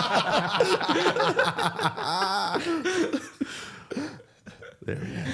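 A man laughing loudly, dying down after about three seconds.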